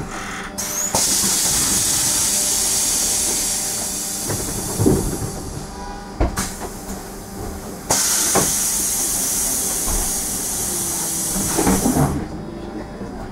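Compressed air hissing from an SOR EBN 9.5 electric bus's pneumatic system in two long bursts of about four seconds each, each starting abruptly, over the bus's low running hum with a few knocks and rattles.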